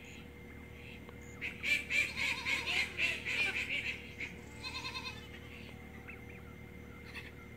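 Turkey calling: a loud, rhythmic run of notes at about four a second lasting over two seconds, then a shorter run about a second later.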